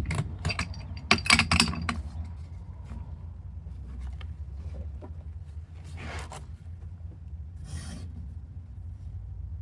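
Scraping and rubbing handling noises with several sharp clicks in the first two seconds, then two short hisses about six and eight seconds in, over a steady low rumble.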